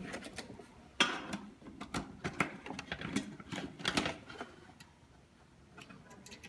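Irregular small clicks and taps of a small screwdriver working the terminal of a plastic push-pull switch as a wire is fitted into it, thinning out after about five seconds.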